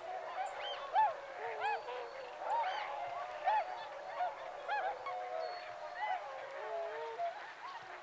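A flock of waterbirds calling over one another: many short calls that rise and fall in pitch, several a second, overlapping without a break.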